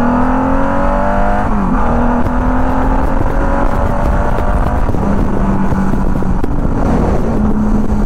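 1999 Honda Valkyrie's liquid-cooled 1500cc flat-six engine under hard acceleration, rising in pitch, with an upshift about a second and a half in. After that it runs at a steadier pitch at highway speed while rushing wind noise builds.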